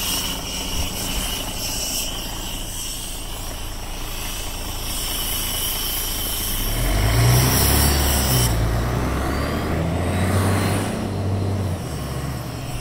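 Mercedes-Benz O 530 G Citaro articulated bus with its diesel engine and ZF gearbox, heard under way. A steady hiss and a light engine hum come first. About six and a half seconds in, the engine comes under load with a deep hum that eases off again near the end.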